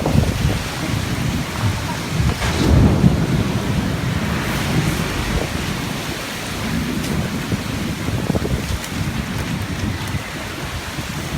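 Heavy rain falling in strong wind, a steady hiss under gusts that buffet the microphone with a deep rumble. The gusting is strongest about three seconds in.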